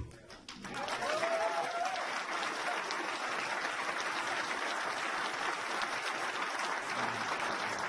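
Audience applauding steadily, the clapping building about half a second in.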